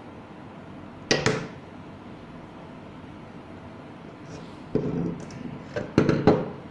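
Knocks from an aluminium electromagnetic door lock being handled and set down on a wooden tabletop: one knock about a second in, then a cluster of knocks near the end, over a steady faint background hum.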